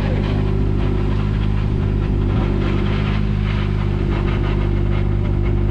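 Track-day car's engine idling steadily, its note holding even with no revving.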